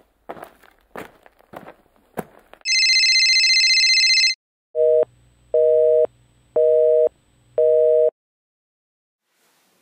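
A few scattered clicks and knocks, then a loud, steady high electronic tone for about a second and a half, followed by a telephone busy signal: four low two-tone beeps, each about half a second on and half a second off.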